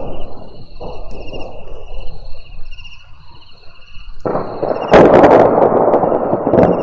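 Thunder rumbling, then a close thunderclap: a sudden rise about four seconds in breaks into a loud sharp crack just before five seconds, and a heavy roll follows. High, pulsing chirps go on steadily behind the thunder until the crack drowns them out.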